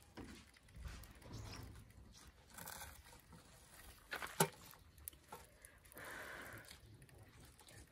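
Faint rustling and tearing of crisp battered fried mushrooms being pulled apart by hand over a steel tray, with one sharp click about four and a half seconds in.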